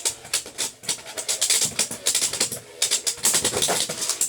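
Two Beyblade X spinning tops battling in a stadium, with a rapid, irregular clatter of hits as they collide and scrape.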